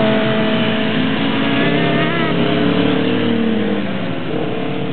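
Several pit bike engines running hard around the track, their steady engine notes overlapping; one note falls away near the end as a rider eases off.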